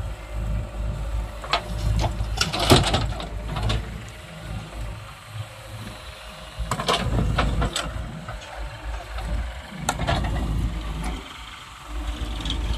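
A JCB 3DX backhoe loader's diesel engine working under load, its rumble rising and falling as the rear bucket digs. A few short, harsh scraping knocks come through, the loudest about three seconds in, as the bucket bites into soil and stones.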